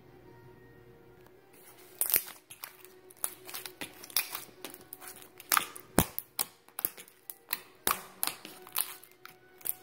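Glitter slime being squeezed and poked by hand, giving off a quick irregular series of sharp sticky clicks and pops from about two seconds in.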